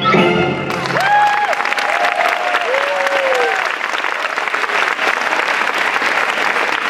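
A theatre audience applauding: the last notes of the march music stop within the first second, giving way to dense, steady clapping. A few voices whoop over the clapping during the first few seconds.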